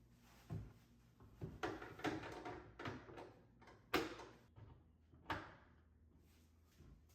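A few quiet knocks and scrapes of things being handled and set down, with the sharpest knock about four seconds in.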